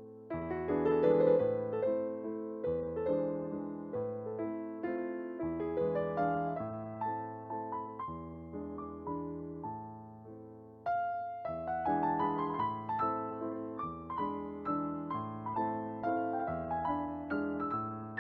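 Background keyboard music: piano-like chords struck and fading over slow bass notes, with a louder phrase coming in about eleven seconds in.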